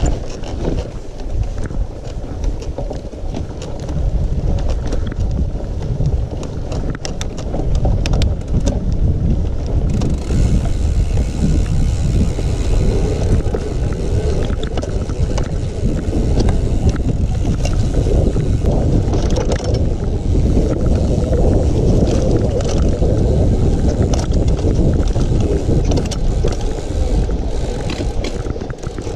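Mountain bike riding over rough ground with wind buffeting the microphone: a steady heavy rumble with scattered rattles and clicks. It gets louder about four seconds in, and more hiss joins it from about ten seconds in.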